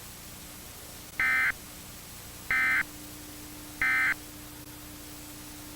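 EAS SAME end-of-message header: three short bursts of warbling digital data tones, evenly spaced about a second and a half apart, over a steady hiss and faint hum. The three bursts signal the end of the emergency alert.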